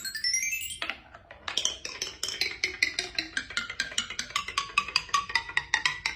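Music: a short rising glide, then a quick run of short struck notes in a bouncy percussive melody, several notes a second, stopping abruptly at the end.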